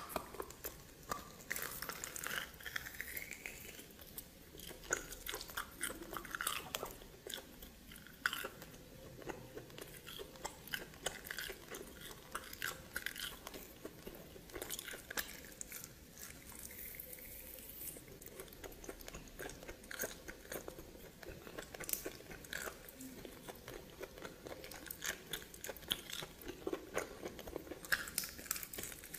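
Someone chewing and biting into steamed snake, a steady run of crisp, irregular crunches.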